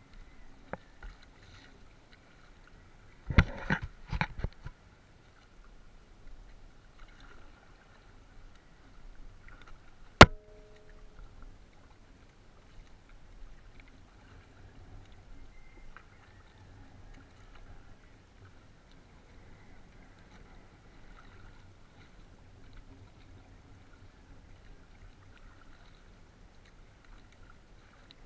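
A small outrigger canoe being paddled on calm water: faint water sounds along the hull. There is a burst of knocks and bumps about three seconds in and a single sharp knock about ten seconds in.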